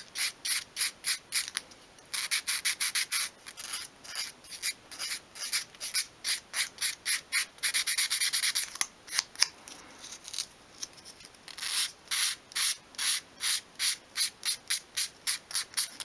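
Fine-grade sandpaper, rolled into a tight curve, sanding a small curved cutout in a piece of obeche wood by hand: quick back-and-forth scratching strokes, about four a second, with a few denser, louder spells.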